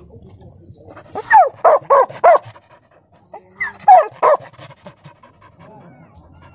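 A dog barking: a quick run of four barks about a second in, then two more about four seconds in.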